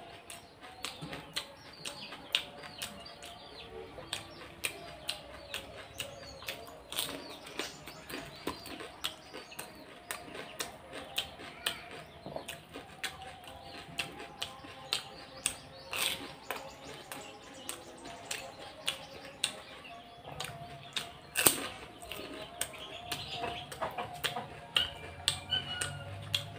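Close-up eating sounds: crisp fried puri shells with potato filling being bitten and chewed, a run of sharp crunches and mouth clicks, a couple a second, with one especially loud crunch about three-quarters of the way through.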